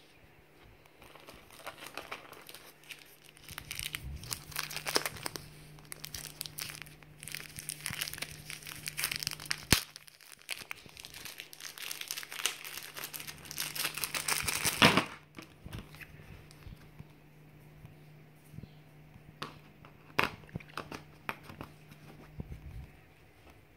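Thin plastic packaging crinkling and tearing as a small packet is handled and opened, busiest and loudest around the middle, ending in a sharp rustle. After that come only scattered light clicks and rustles.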